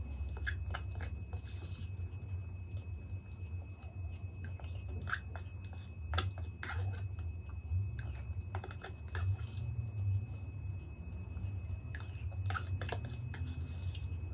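Close-miked eating sounds: a spoon clicking and scraping in a plastic cup, and chewing and wet mouth sounds as spoonfuls are eaten, heard as scattered small clicks. A faint, steady high whine runs underneath.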